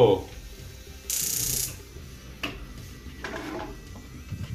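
Gas stove burner being lit under a pot: a short burst of ignition hissing and clicking about a second in, then a couple of single sharp clicks or knocks.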